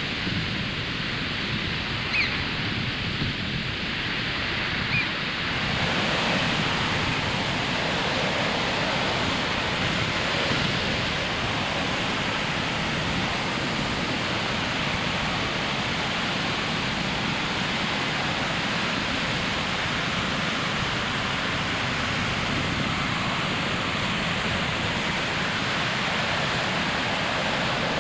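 Ocean surf breaking and washing up a sandy beach: a steady rushing noise that swells a little about six seconds in.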